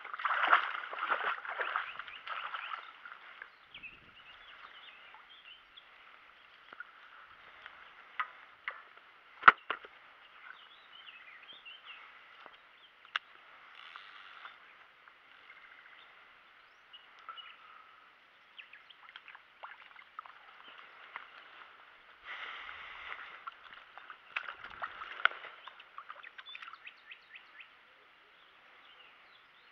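Shallow water splashing and sloshing in irregular bursts, strongest in the first few seconds and again about three quarters of the way in. A few sharp clicks or knocks stand out, the loudest about a third of the way in.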